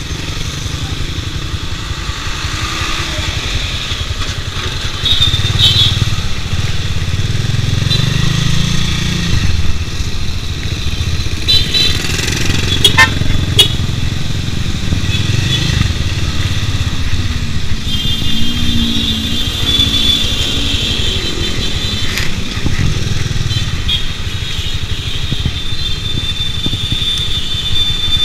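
Bajaj Pulsar 200 DTSI's single-cylinder engine running under the rider while riding in slow city traffic, with the engines of surrounding motorcycles and cars mixed in. It gets louder about five seconds in, and a few short sharp clicks come about halfway through.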